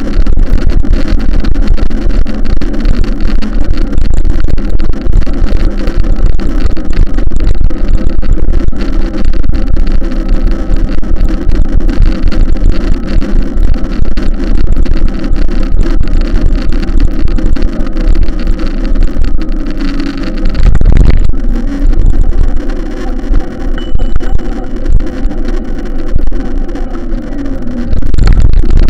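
A vehicle's engine running steadily under a loud, dense rumble, with a brief low surge about two-thirds of the way through.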